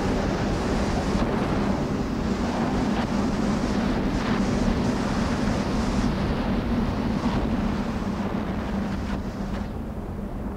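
Steady rushing wind with a low held hum underneath, easing off over the last few seconds.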